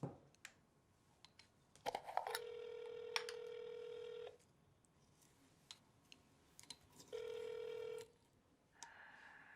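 Telephone handset tones as an outgoing call is placed: a few clicks, then a steady low beep for about two seconds, then a gap, then the same beep again for about a second, the ringback tone of a call ringing before it is answered.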